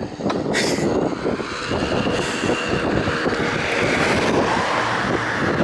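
Road traffic noise over wind rumbling on a moving bicycle-mounted or handheld microphone, with a car passing in the oncoming lane about four seconds in.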